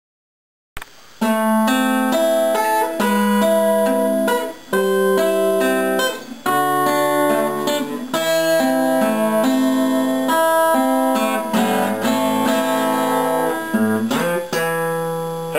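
Acoustic guitar played, a run of chords with the notes ringing on, starting about a second in.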